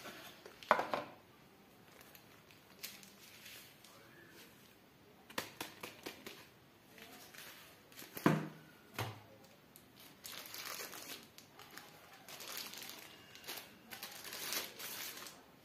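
Paper and cardboard rustling and crinkling as the card insert and paper leaflets of an iPhone SE 2022 box are handled, with a few sharp taps and knocks of card, the loudest a little past halfway.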